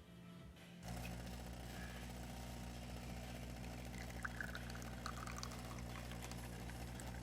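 DeLonghi Magnifica espresso machine's freshly replaced water pump starting about a second in and humming steadily as it pushes water through the brew unit for a test shot. From about four seconds in, espresso trickles and splashes into the cup. The steady pump and flowing coffee show the machine delivering water again after the failed pump was replaced.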